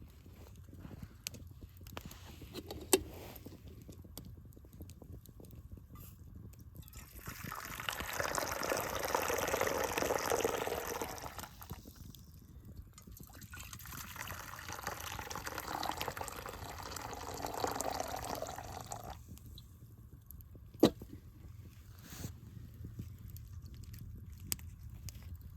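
Liquid being poured in two spells of a few seconds each, with two sharp knocks, one a few seconds in and one near the end.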